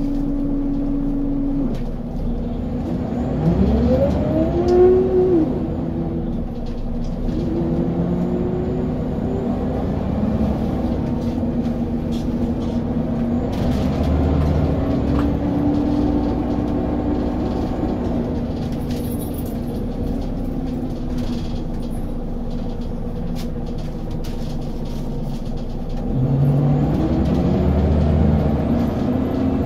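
Scania L94UB Lahti Scala city bus under way, its ZF Ecomat 5HP502C automatic gearbox giving a loud whine that climbs steeply in pitch as the bus accelerates, a few seconds in and again near the end, over the steady running of the diesel engine.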